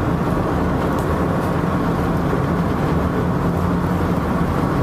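Steady noise of a car driving at speed, heard from inside the cabin: even tyre and engine noise with a low hum.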